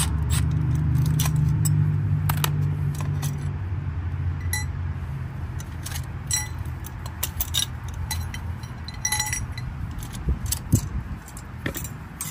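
Light metallic clicks and clinks of hand tools and hardware being handled while working on the blower motor and its mounting band, scattered irregularly throughout. Under them is a low drone that eases off after the first few seconds.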